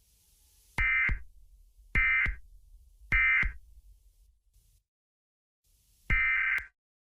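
Emergency Alert System end-of-message data bursts, short buzzing digital screeches that mark the end of the alert. Three come about a second apart, then a fourth about three seconds later.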